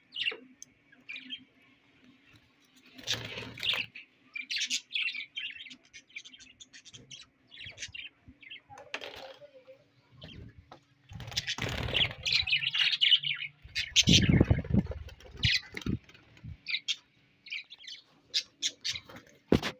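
Budgerigars chirping in many short, scattered calls, with louder bouts of rustling and fluttering at about three seconds and again from about eleven to sixteen seconds. A faint steady low hum runs underneath.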